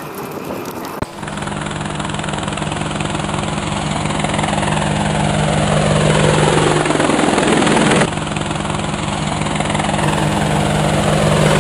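Quadcopter drone rotors humming steadily, a sound effect that starts abruptly about a second in and grows louder, with a whoosh falling in pitch through the middle.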